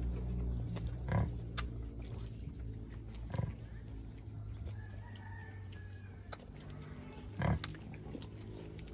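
Native pigs grunting: a few short, separate grunts, the loudest near the end.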